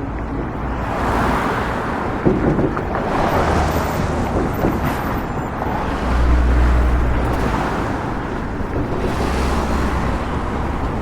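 City street traffic: a continuous wash of road noise, with the low sound of vehicle engines swelling several times as they pass. There is a brief clatter about two seconds in.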